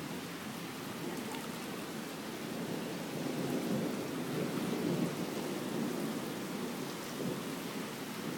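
Heavy rain falling during a thunderstorm, with a low rolling rumble of thunder that swells about three to five seconds in.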